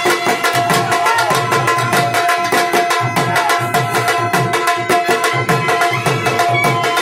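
Dhol drum beaten in a fast, even dance rhythm, with a held melody line sounding over the beat.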